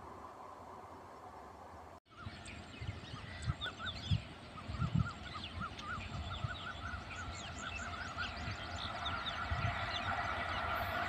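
Birds calling in many short, quickly repeated notes. Under them, a low rumble grows steadily louder toward the end as a train hauled by a WAP-7 electric locomotive approaches.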